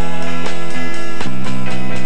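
Live band music with no singing: a drum kit keeping a steady beat under electric bass and guitars holding steady notes.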